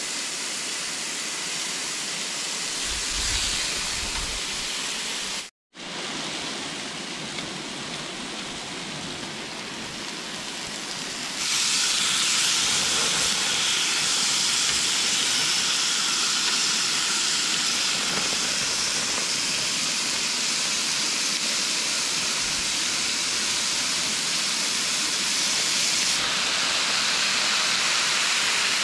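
Thin-cut beef ribs sizzling on the grates of a portable grill, a steady hiss. The sound drops out for a moment about five seconds in, then comes back louder from about eleven seconds on.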